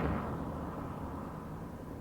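A car that has just driven past, moving away: its road and engine noise fades steadily and grows duller as it recedes.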